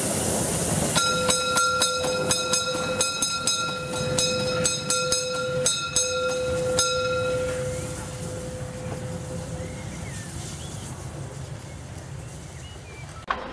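DR class 52.80 steam locomotive sounding its whistle in one long blast of about six seconds, starting about a second in, over sharp regular exhaust beats about three a second. After the whistle dies away, the engine's working sound carries on more quietly.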